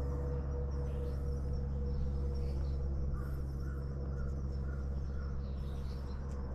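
Outdoor ambience: a steady low rumble, with a bird giving a quick run of short notes in the middle.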